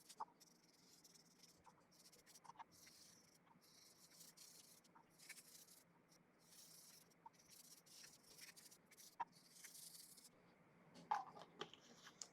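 Faint scratching strokes of a scriber drawn across a cast iron block coated in layout blue, marking layout lines: a series of short strokes with a few light clicks of the tool, and a sharper knock near the end.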